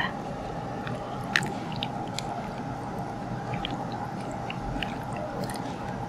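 Scissors snipping into a pig heart's left atrium as gloved hands handle the wet tissue: scattered faint clicks and squelches over a steady background hum.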